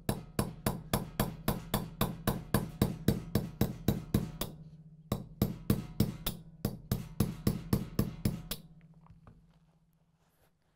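Hammer tapping a roll pin punch to drive the roll pin out of an M1014 shotgun's buttstock disassembly button: quick, even taps about four or five a second in two runs with a short pause between. A low ringing tone sounds under the taps and fades away after the last one.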